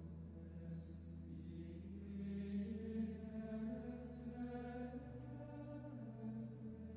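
Soft music of long held chords over a steady low note, the chord shifting about three and five seconds in.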